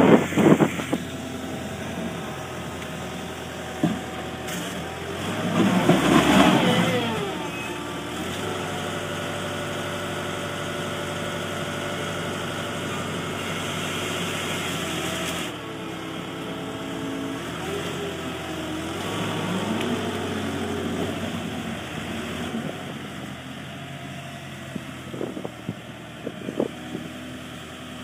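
Zettelmeyer ZL 1001 wheel loader's diesel engine running and revving up and down as it works a silage grab, with louder noisy surges near the start and about six seconds in.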